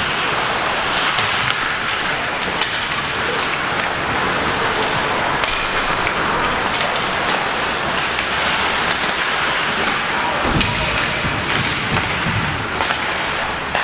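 Ice hockey skates scraping and carving across the ice in a steady crackling hiss, with a few sharp clicks and a low thump about ten seconds in.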